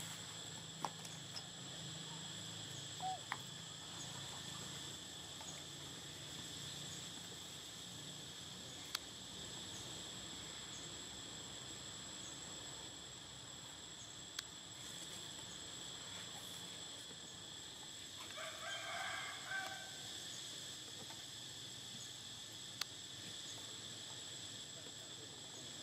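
A rooster crows once, drawn out over about two seconds, roughly eighteen seconds in. A steady high-pitched whine runs underneath, with a few faint clicks.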